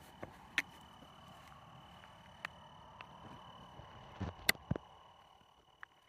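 Quiet ambience: a faint steady high-pitched whine under a low hiss, with a few scattered sharp clicks, the loudest about half a second in and about four and a half seconds in.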